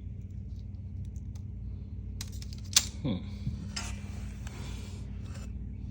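Metal parts being handled: a few light clicks, then one sharp clink nearly three seconds in with a brief falling ring, followed by a couple of seconds of scraping and rustling, over a steady low hum.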